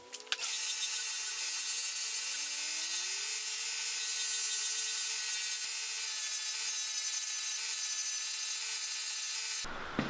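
Multi-tool belt grinder's buffing wheel running while a scratched plastic welding-helmet lens cover is pressed against it and polished: a steady whirring rub with a high whine. It cuts off suddenly near the end.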